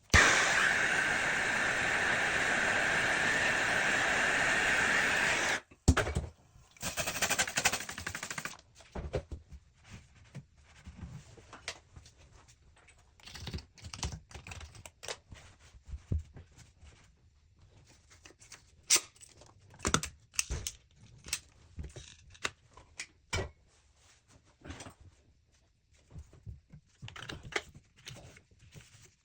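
A loud, steady hiss for nearly six seconds, then a shorter hiss, then scattered sharp clicks and knocks, like tools tapping and handling parts during plumbing work.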